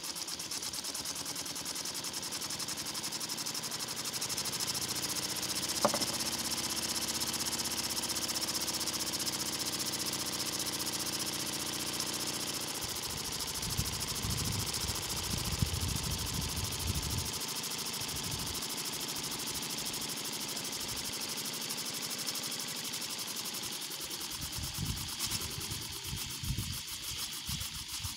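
3D-printed steam engine running fast on steam with a steady hiss and a rapid, even beat, belt-driving a small dynamo that is putting out a few volts. There is one sharp click about six seconds in and some low rumbling in the middle and near the end.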